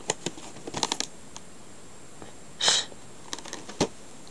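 Light clicks and taps of boxed action-figure packaging being handled, with a single short sniff about two-thirds of the way in.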